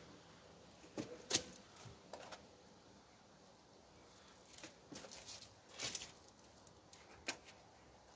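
Light scrapes and taps of hand-painting: a paintbrush working paint onto a car's side skirt and knocking against the paint holder. The short clicks come scattered through, a pair about a second in, a cluster around five seconds, and a sharper one near six seconds.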